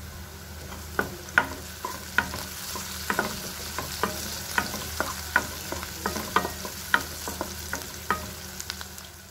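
Chopped onions, chillies and turmeric sizzling in hot oil in a non-stick kadai while a wooden spatula stirs them, with quick, irregular knocks and scrapes of the spatula against the pan starting about a second in. The sizzle dies away near the end.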